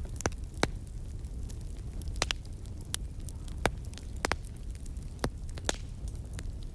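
Wood fire crackling: sharp irregular pops and snaps, a few a second, some louder than others, over a steady low rumble.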